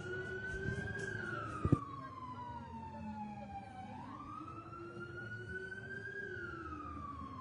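Emergency-vehicle siren in wail mode, its pitch sliding slowly up and down, about one full rise and fall every five seconds. A single sharp click cuts through just under two seconds in.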